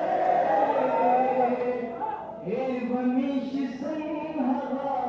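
A man singing a Pashto ghazal unaccompanied into a microphone, holding long notes in two phrases with a short break about halfway.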